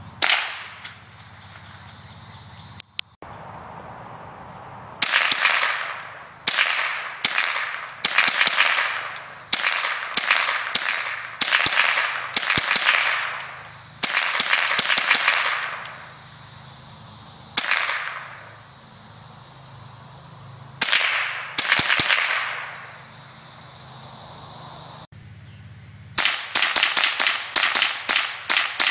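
Gunshots from long guns fired one after another, each followed by an echo that fades over about half a second. Near the end comes a quick string of shots, two or three a second.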